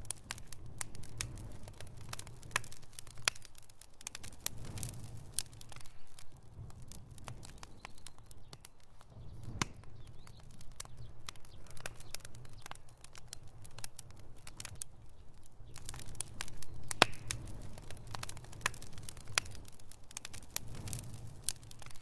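Split-log bonfire burning, crackling with irregular sharp pops and snaps over a low, uneven rumble. One pop about three-quarters of the way through is louder than the rest.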